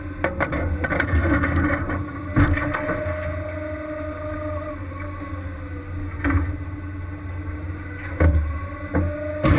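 Crab-fishing boat's engine and deck machinery running with a steady low hum, broken by several sharp knocks and clanks near the start, around the middle and near the end.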